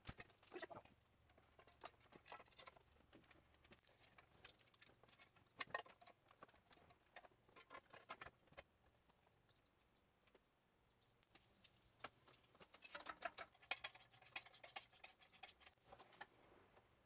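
Faint, scattered clicks and taps of metal parts being handled as a new tubular exhaust header is fitted to the engine, with a denser run of quick clicks about three-quarters of the way through.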